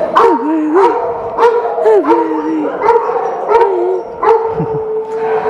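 Several shelter dogs in kennel runs barking over and over, a bark roughly every half second, with wavering howls and whines between the barks.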